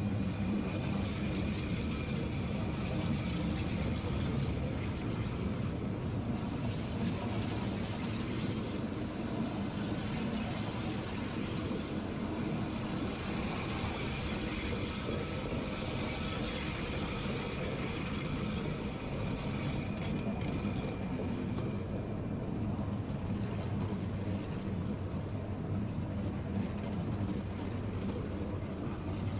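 Rhaetian Railway Capricorn electric multiple-unit train moving slowly past, a steady mechanical hum of its motors and equipment under a rolling hiss, with a faint high whine that comes and goes.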